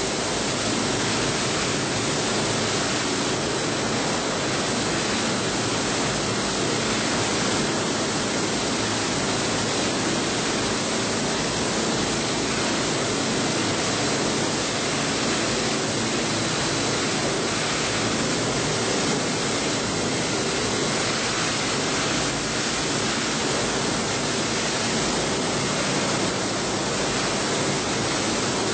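Plastic agglomerator (densifier) running: a steady, dense rush of machine noise with a low steady hum underneath.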